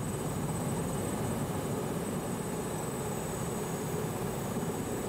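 Military transport helicopter descending to land, its rotor and turbines running steadily, with a thin high turbine whine above the rotor noise.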